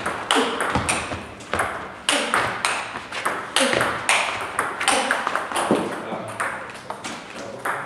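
A table tennis rally: a sharp click each time the ball is struck by a rubber-faced paddle and each time it bounces on the table, several a second. The hits thin out after about six seconds as the point ends.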